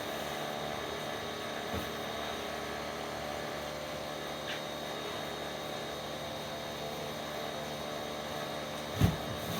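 Pressure washer running steadily: a constant mechanical hum over a broad hiss. One short, low thump comes about nine seconds in.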